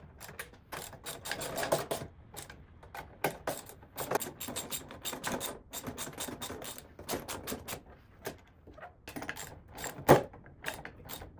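Rapid, irregular metallic clicking and rattling of small hardware: bolts, washers and nuts being handled and threaded through a caster plate on a steel tool cart, with one sharp knock about ten seconds in.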